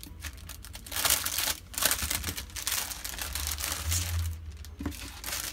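Clear plastic packaging crinkling and rustling as a bag of craft embellishments is pulled open and handled, in a string of irregular rustles, loudest about a second in.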